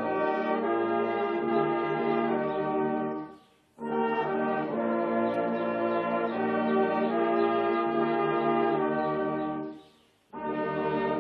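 Brass instruments playing held chords in several parts, breaking off twice for about half a second between phrases.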